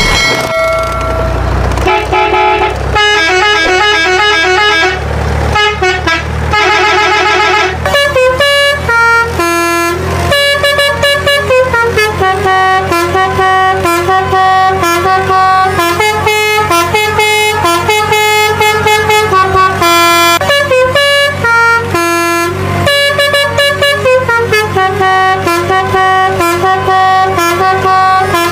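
A multi-tone vehicle horn playing a tune, its notes stepping up and down about twice a second, with warbling trills in the first few seconds.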